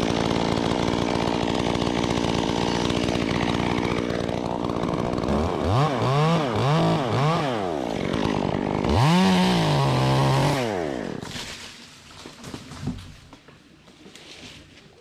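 Two-stroke chainsaw running at a steady high speed through a cut, then revved up and down three times in quick succession and once more held high before it drops away about eleven seconds in.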